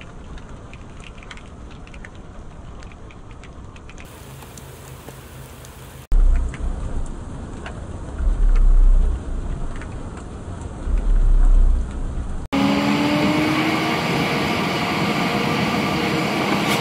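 Light rain falling on open ground, a soft steady hiss with faint scattered drop ticks. After a cut, wind gusts buffet the microphone in the rain in low rumbling surges, twice. Near the end a car is heard driving on a road from inside the cabin, its engine and tyres making a steady noise.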